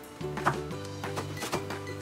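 A kitchen cleaver chopping eggplant into strips on a cutting board: a few sharp chops, the loudest about half a second in, over background music.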